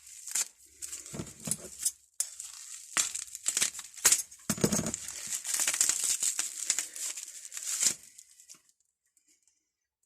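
Packaging crinkling and tearing as wrapping is pulled off, mixed with a few sharp knocks, stopping about eight seconds in.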